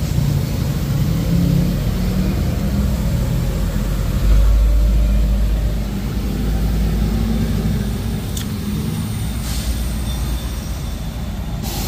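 Steady low machinery rumble, strongest for a couple of seconds about four seconds in, with a few short sharp clicks near the end.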